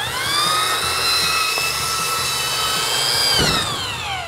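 Porter-Cable belt sander sanding a leather tool belt: the motor whine rises quickly as it spins up, holds steady, then falls in pitch from about three seconds in as the sander winds down.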